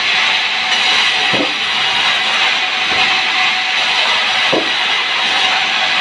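Band sawmill running with its blade cutting lengthwise through a timber beam, a steady loud noise of saw in wood. Two short low thumps come about a second and a half in and again about three seconds later.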